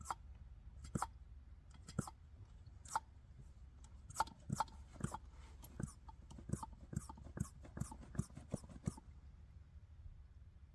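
A hand pump being worked to draw diesel through the hose and purge air from the new fuel filter: a string of faint sharp clicks, irregular at roughly two a second, that stop about nine seconds in.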